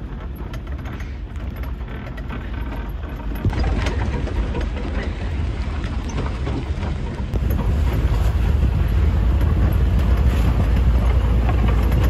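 A truck's engine and the rumble of the ride, heard from the open back of the moving vehicle on a dirt road. It is loud and steady and grows louder in two steps, about three and a half and seven seconds in.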